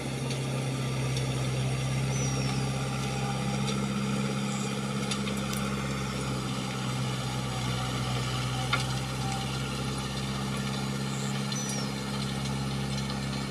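Tractor engine running steadily while plowing a flooded paddy field: an even, low hum. A bird chirps twice, briefly.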